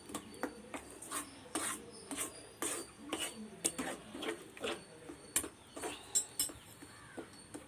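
Spoon scraping and knocking against a pan, about two strokes a second, as a thickening coconut-and-sugar burfi mixture is stirred continuously to keep it from sticking to the bottom.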